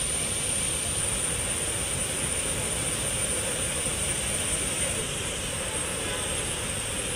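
Steady rushing noise of fast-flowing floodwater, even and unbroken throughout.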